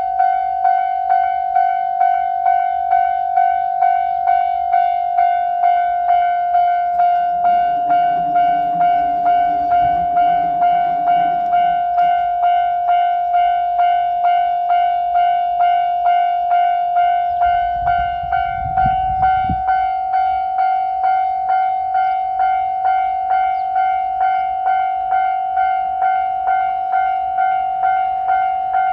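Japanese level-crossing warning bell ringing: a steady electronic 'kan-kan' chime struck about twice a second, the signal that a train is approaching and the crossing is closed. A lower drone joins it briefly before the middle, and a short low rumble comes about eighteen seconds in.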